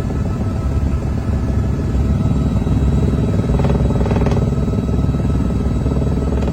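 Helicopter engine and rotor noise: a loud, steady rumble with a fast, even chop.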